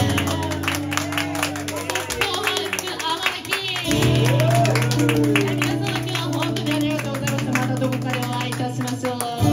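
Acoustic guitar strummed in a fast rhythm, the chord changing about four seconds in, with a woman's voice singing into a microphone over it.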